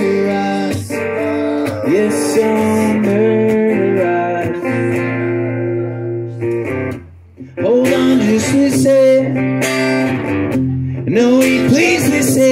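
Steel-string acoustic guitar strummed in a live solo song, with a man singing over it. The playing drops out briefly a little past halfway, then comes back in.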